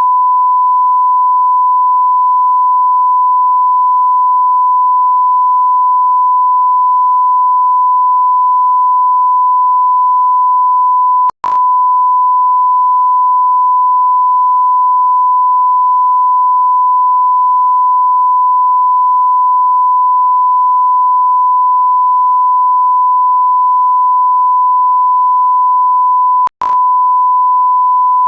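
A steady electronic beep tone at a single pure pitch, held without change. It cuts out for a split second with a click about eleven seconds in and again near the end.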